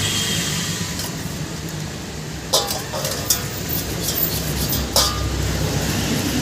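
A motorcycle cylinder head being washed in a steel basin of petrol: liquid sloshing and scrubbing, with three sharp clinks of metal against the basin in the middle part. A steady low hum runs beneath.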